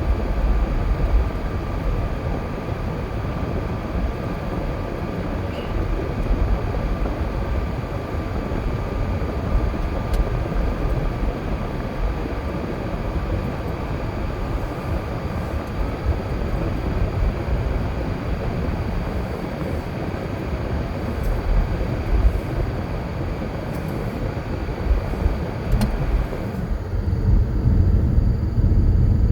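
Car driving along: steady engine and tyre noise with a faint steady whine. Near the end the hiss fades and the low rumble grows louder.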